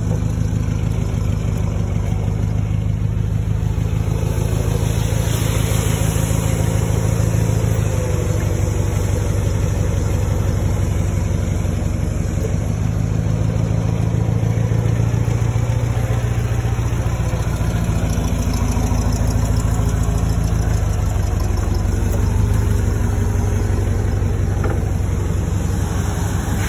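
Forklift engine running steadily as it carries a loaded pallet, its note dipping and rising a little around the middle.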